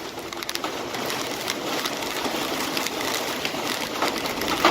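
Steady rain falling, a dense crackling patter with scattered sharper drops.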